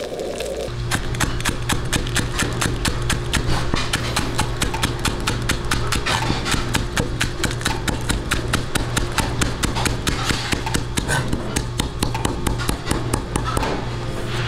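A Chinese cleaver chopping green onions on a thick wooden chopping board: rapid, even knocks, about five a second. It is laid over background music. The sizzle of an egg frying in oil in a wok cuts off under a second in.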